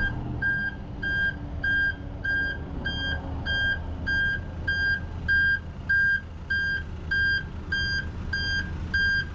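Backup alarm of a reversing Bergmann C815 dumper beeping steadily, about two short high beeps a second, over the low running of diesel engines.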